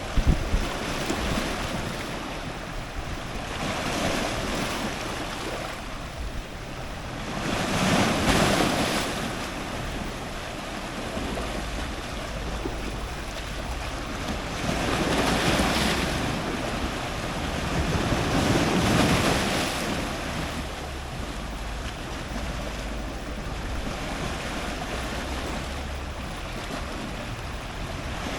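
Strong ocean surf breaking on rocks close by, a constant wash that swells into louder crashing surges every few seconds, with some wind buffeting on the microphone.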